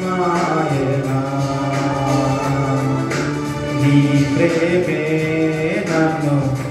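A man singing a Telugu Christian worship song with electronic keyboard accompaniment, the melody moving through long held notes.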